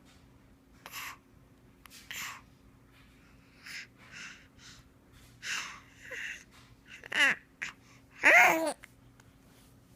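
A baby's short, breathy fake coughs, about one a second, then two louder voiced squeals with wavering pitch near the end, the second the loudest.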